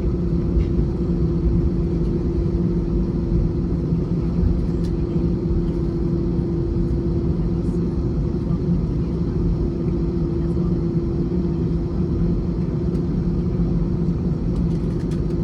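Airbus A321 cabin noise: a steady low rumble from the jet engines at low power, with an even drone of two hum tones running through it.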